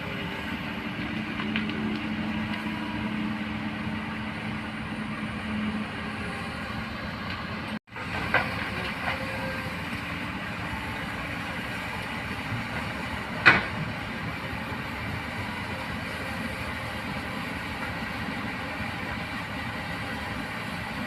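Excavator's diesel engine running steadily, with sharp metallic clanks, the loudest about two-thirds of the way in.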